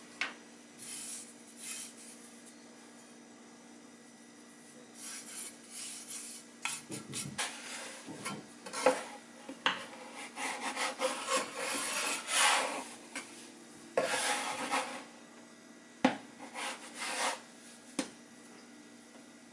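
Metal bench scraper scraping across a wooden board as it is worked under bread dough, in a run of short, irregular scrapes starting about five seconds in, with a sharp knock about sixteen seconds in.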